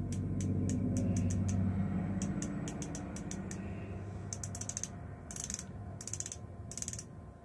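Twist-up concealer pen being turned at its base, its ratchet clicking in runs of quick clicks as it pushes product up to the brush applicator; the clicks bunch together in the second half.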